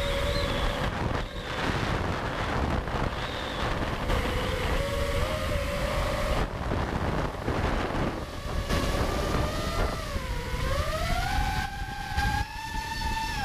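FPV quadcopter's brushless motors (DYS Samguk 2207 2600KV on 5-inch props) whining, their pitch rising and falling with the throttle, with wind buffeting the on-board camera's microphone. Toward the end the whine climbs steadily for a couple of seconds and then drops sharply.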